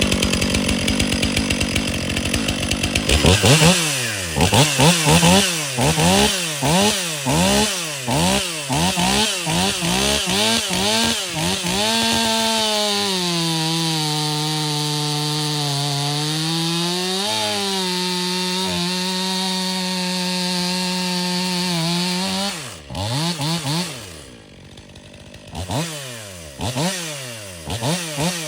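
Stihl two-stroke chainsaw revved in quick repeated blips, then held at full throttle for about ten seconds while cutting through oak, its pitch sagging slightly under the load. It drops back near idle, then is blipped again near the end.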